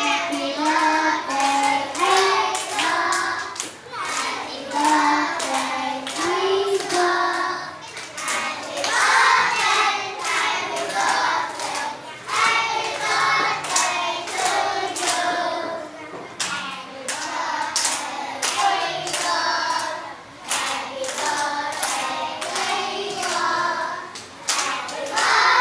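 A class of young children singing a birthday song together, clapping along in time.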